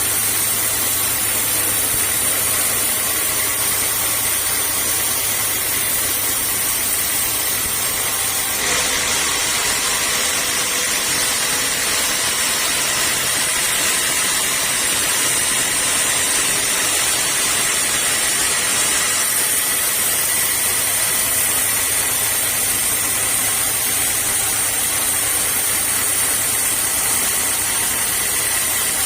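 Sawmill machinery running steadily, a continuous machine noise with a high whine on top. The sound shifts slightly about nine seconds in and again a little before twenty seconds.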